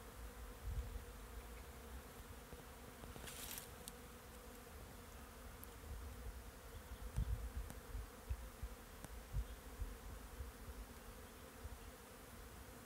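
Bees buzzing steadily around flowering willow catkins, a constant hum, with a few low bumps on the microphone about a second in and again near the middle.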